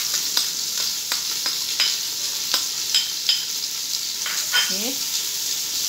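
Chopped onions frying in hot oil, a steady sizzle, with occasional sharp clicks as a plastic spoon scrapes thick yogurt from a bowl onto raw chicken.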